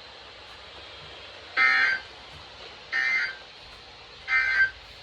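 Three short, buzzy bursts of Emergency Alert System end-of-message data tones, about a second and a half apart, signalling that the severe thunderstorm warning message has ended.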